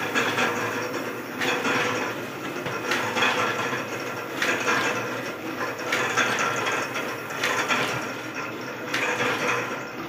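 Offset printing press running, with a loud mechanical clatter that swells in a regular cycle about every second and a half.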